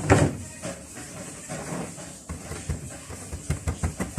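Knife sawing through a crusty loaf of whole grain bread: a sharp crunch at the start, then quick regular strokes, about three or four a second, from about two seconds in.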